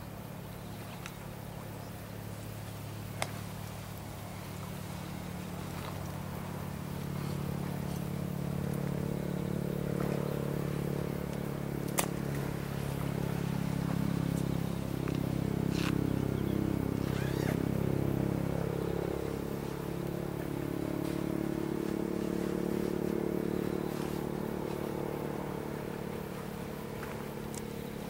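A distant engine droning steadily, growing louder toward the middle and easing off again, with a few sharp clicks over it.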